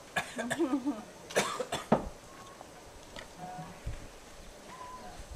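A person coughing and clearing their throat, a few harsh coughs within the first two seconds.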